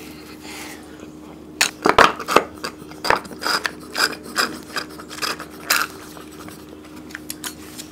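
Slurping soya milk from a small carton through a straw, with irregular sucking rasps starting about one and a half seconds in as the carton runs dry.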